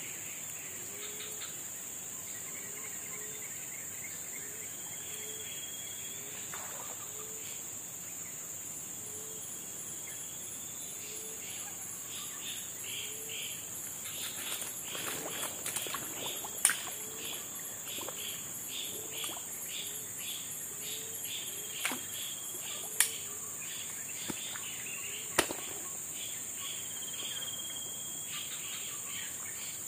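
Tropical forest insects droning steadily at a high pitch, with a low short call repeating about once a second and a faster chirping, about two a second, joining for a stretch in the middle. Three sharp clicks stand out in the second half.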